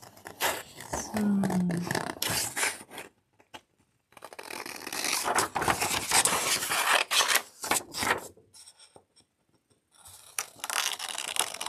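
Scissors cutting paper, with the rustle of the sheet being turned, in three stretches separated by short pauses.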